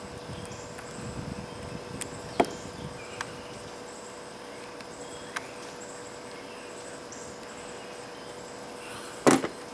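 Crimping pliers squeezing a metal quick-disconnect pin onto a stripped wire: a few sharp clicks spread out, the loudest a short crackly burst near the end, over steady insect chirring in the background.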